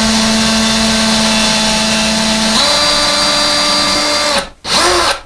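Cordless drill drilling a small pilot hole through drywall into a wall stud, its motor whining steadily; the pitch shifts about two and a half seconds in. It stops near the end, then gives one short burst that winds down.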